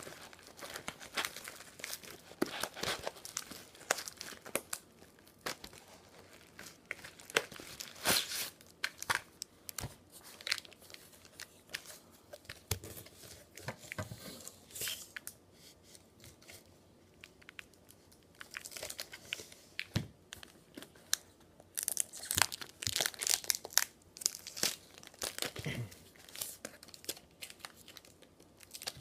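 Packaging being torn open and crumpled by hand, an irregular crackling and rustling that comes in bursts, with a quieter stretch partway through.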